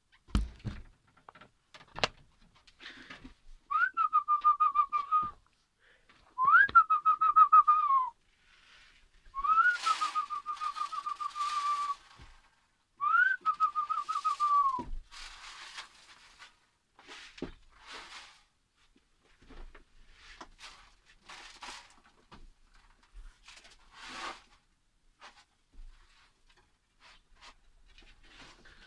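A person whistling four times, each a quick upward slide into a held, fluttering note lasting a second or two: a whistled call to pigeons at feeding time. Short clicks and rattles come between the whistles and after them.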